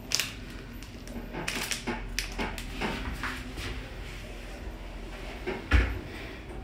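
Handling noise from a phone being turned in the hand: scattered rustles and clicks, then one heavy low thump near the end.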